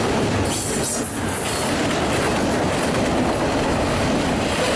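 CSX freight train cars rolling past, wheels clattering steadily on the rails, with a brief burst of high hiss about a second in.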